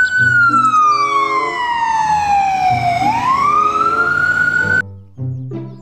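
Ambulance siren wailing, with a slow downward sweep in pitch and a quicker rise back up, then cutting off suddenly near the end. Background music plays underneath.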